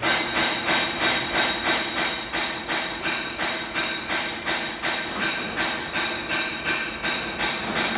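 Metal roller shutter being worked, rattling in regular clanks about three times a second with a steady high metallic ring under them, starting suddenly.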